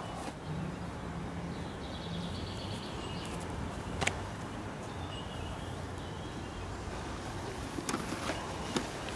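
Open-air park ambience: a steady low hum with faint high chirps. One sharp click comes about four seconds in, and a few softer ticks come near the end.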